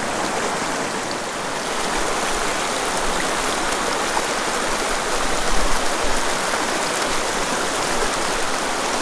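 Small rocky creek rushing steadily over stones in a shallow riffle.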